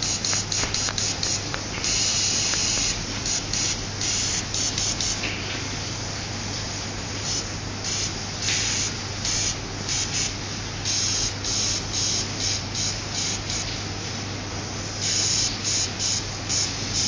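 Airbrush spraying in many short bursts of hiss, with longer sprays of about a second near the start, in the middle and near the end, over a steady low hum.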